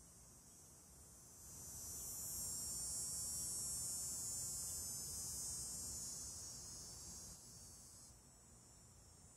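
Cicada calling: a steady high buzz that swells about a second and a half in, holds for several seconds, then falls back to a fainter buzz near the end.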